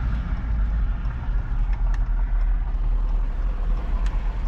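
Pickup truck rolling slowly, with a steady low engine and road rumble.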